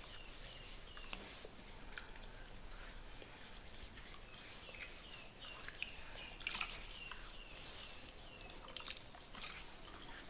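Fingernails scratching through a beard close to the microphone: a run of dry, crackling clicks and scratches. A series of short high chirps, a few a second, comes in near the start and again midway.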